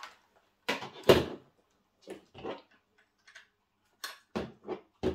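Tabletop handling noises while unwrapping a handheld infrared thermometer: two knocks about a second in, the second the loudest, like scissors being put down on the table, then scattered light clicks and rustles of plastic wrap and a few sharper knocks near the end.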